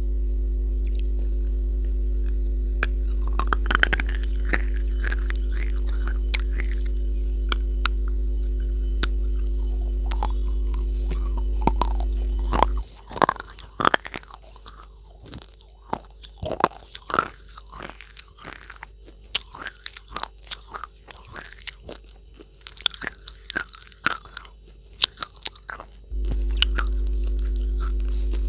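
Close-miked crunching and chewing: sharp, crisp crunches of a hard, crumbly white slab being bitten and chewed right at a lapel microphone. A steady low hum runs underneath for about the first half, cuts out suddenly, and comes back near the end.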